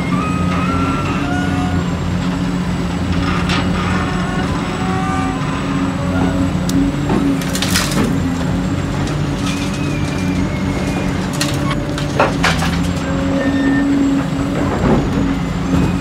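Heavy diesel machinery running steadily, the excavator engine working under load, with four sharp knocks and clanks spread through it.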